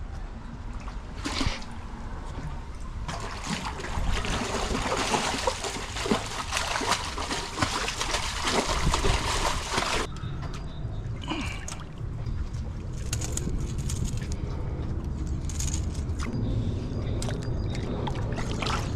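Water splashing and sloshing at the surface as a pike thrashes on a topwater lure. The heaviest, most continuous splashing runs from about three seconds in to about ten seconds in, followed by lighter sloshing.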